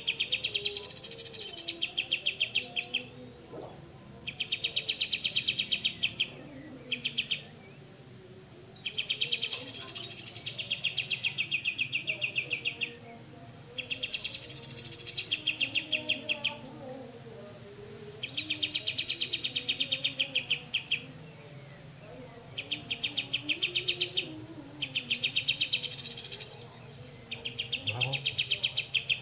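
Grey-cheeked bulbul (cucak jenggot) giving its 'besetan' call: fast, rasping trills of even clicks, each lasting one to two seconds, repeated with short pauses. A steady high whine runs underneath.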